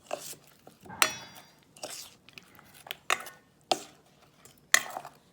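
Sharp clinks and taps of a utensil against a bowl, about seven separate strikes a second or less apart, some ringing briefly, as plantain slices are worked into chickpea-flour batter.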